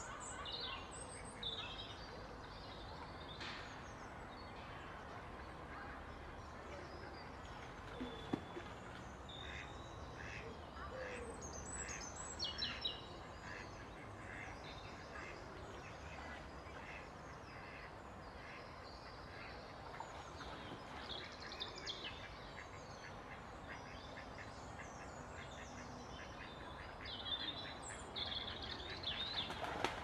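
Mallards on the water: scattered duck calls and splashing as several drakes mob a lone female, over a steady background of water and small birds chirping, louder in spells about a third of the way in and near the end.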